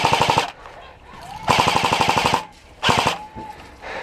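Airsoft AK-style rifle firing rapid full-auto bursts: one ending about half a second in, a second of about a second starting around a second and a half in, and a short one near three seconds.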